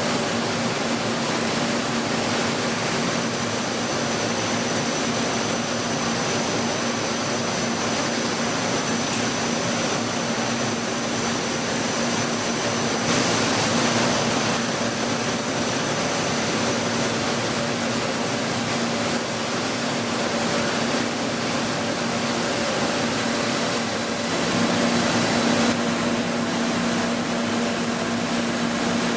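Multi-axis CNC machine tool running: a steady hiss with a constant low hum, and a thin high whine for the first half or so.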